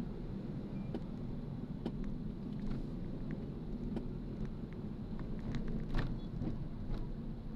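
Steady low rumble of a moving vehicle, with light clicks and taps scattered through it; the loudest click comes about six seconds in.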